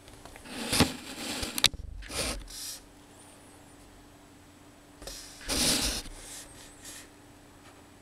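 Handling noise: two bouts of rubbing and scraping, the first with a couple of sharp clicks about a second in, the second around five seconds in.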